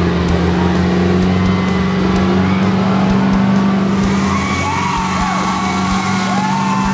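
Truck engine held at steady high revs under heavy load while pulling against a monster truck, with wavering high squeals from about four seconds in.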